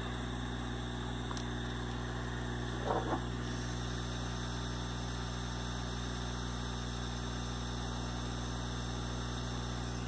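Hot air gun of a budget soldering station blowing steadily, a low hum with a hiss of air, as it shrinks heat-shrink tubing over soldered wires.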